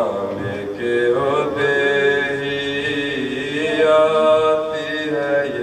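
A man's solo chanted recitation of a Muharram lament, unaccompanied, sung through a microphone in long, drawn-out melodic phrases.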